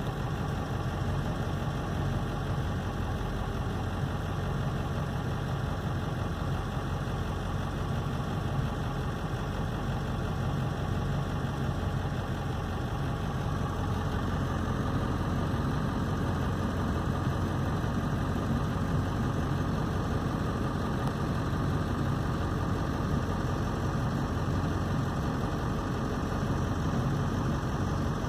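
Vehicle engine idling steadily, heard from inside the cab, a low even hum that grows slightly fuller about halfway through.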